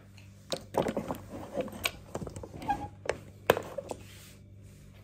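Handling noise from a phone being picked up and propped into place: a run of irregular knocks, taps and rubbing, the sharpest knock about three and a half seconds in, over a steady low hum.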